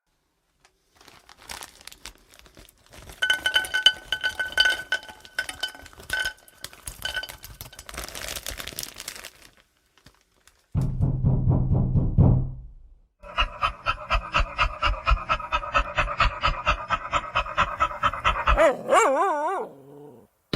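A string of separate sound effects with short silent gaps between them. First comes a clatter of clicks with held tones. Then a low buzz, then a fast even pulsing that gives way to a wavering tone near the end.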